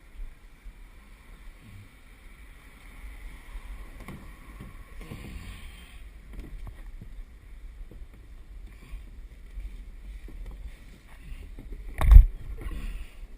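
Hunter Fishing plastic kayak being handled and taken down off a car by one person: scattered light knocks and scrapes, then a loud thump about twelve seconds in.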